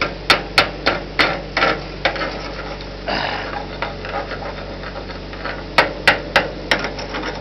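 A wrench used as a chipping hammer striking slag off a fresh 7018 stick weld: sharp metal-on-metal knocks about three a second. The knocks pause for a couple of seconds in the middle, then resume with four or five more strikes near the end.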